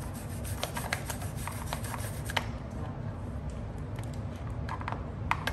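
Light rubbing and scattered small clicks as a hand works an electric scooter's front mudguard against the fork, busiest in the first couple of seconds and again near the end, over a steady low hum.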